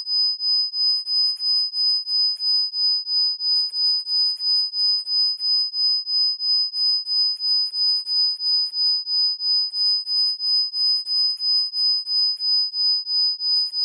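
A 5000 Hz pure tone from a Rife frequency track: a steady high-pitched whistle that pulses in loudness about three times a second, with a fainter lower tone beneath and a faint, very high hiss that comes and goes every couple of seconds.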